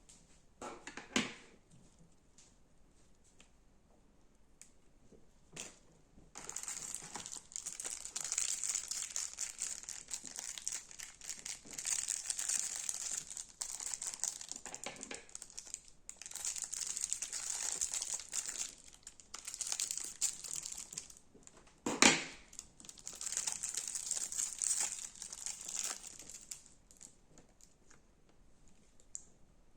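Crunchy slime being squeezed and kneaded, giving a dense crinkly crackling that goes on for about twenty seconds with a few short pauses, with a sharp pop about a second in and a louder one about 22 seconds in.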